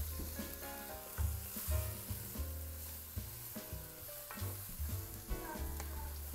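Ground wild boar, barley and chopped leek frying in oil in a pot, sizzling while a wooden spoon stirs and scrapes them around the bottom in irregular strokes.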